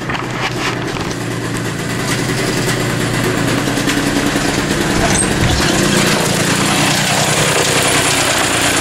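A 3 hp Tecumseh single-cylinder snowblower engine idling steadily, driving a grinding-wheel arbor; it gets louder over the first few seconds and then holds.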